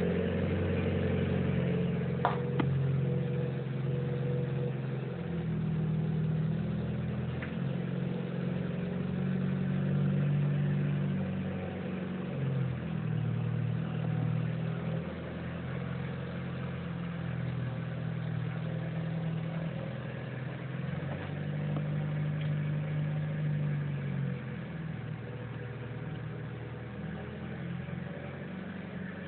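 Mitsubishi Lancer Evolution VIII's turbocharged four-cylinder engine running, its speed shifting up and down now and then.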